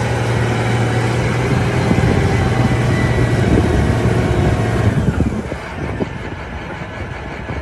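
A vehicle engine running: a steady low hum under a rattly clatter, easing off and quieting about five seconds in.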